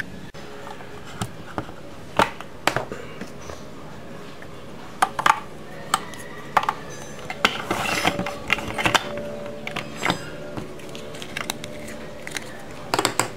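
Hard plastic parts of a toy play-dough car extruder clicking and knocking as they are handled and pulled apart: a dozen or so sharp clicks spread out, with a brief rustling scrape about eight seconds in.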